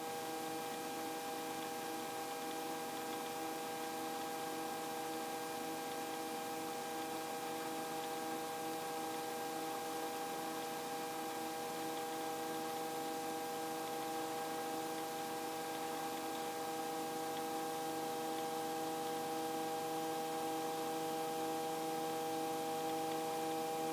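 Small helicopter in steady level flight, heard through the headset intercom as a steady hum made of several fixed tones over a faint hiss.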